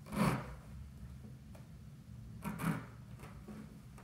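Two short, soft scrapes of hands brushing against the tiled panel of a hidden bathroom access door, just after the start and again about two and a half seconds in.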